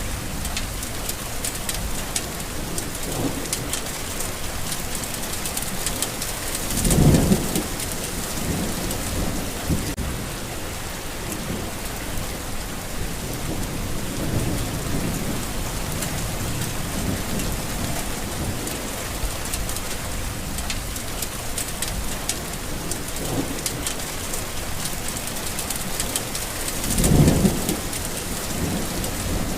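Steady rain falling on a garden, with the patter of individual drops, under rolling thunder. The thunder swells into two louder low rumbles, about a quarter of the way in and near the end, with fainter rumbles in between.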